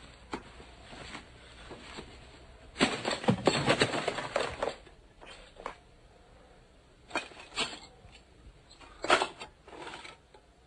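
Rustling and clattering as a cardboard box of metal film reels is rummaged through and a reel is lifted out, in several short bursts, the loudest a few seconds in.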